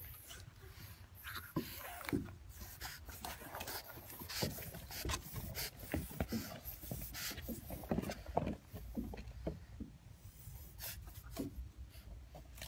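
A pet animal breathing and scuffling during play, with many irregular short clicks and knocks.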